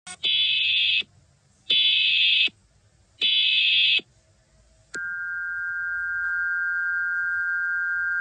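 Emergency Alert System (EAS) alert header: three short bursts of digital data tones about a second apart. About five seconds in, a steady two-tone attention signal begins and holds.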